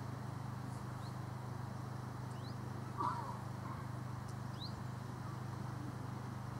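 Outdoor ambience over a steady low hum, with a few short rising bird chirps and one brief louder sound about three seconds in.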